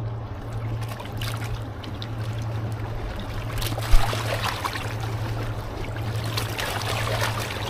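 Water splashing and trickling in irregular bursts over a steady low hum, with one sharp knock about four seconds in.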